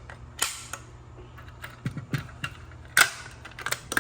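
Several sharp clicks and knocks of handling at irregular intervals, the loudest about three seconds in, over a low steady hum.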